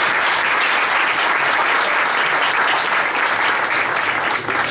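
Audience applauding: a steady round of clapping from a roomful of people, dying down at the very end.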